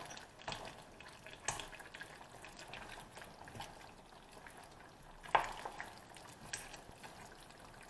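A spoon stirring a thick stew in a stainless steel pan, with a few short scrapes and clicks against the pan, the loudest about five seconds in, over a faint sizzle of the thickening sauce simmering.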